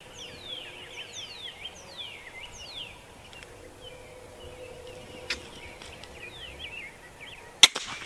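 Small birds singing repeated short whistled notes that slide down in pitch, over a quiet outdoor background. Near the end there is one loud, sharp crack.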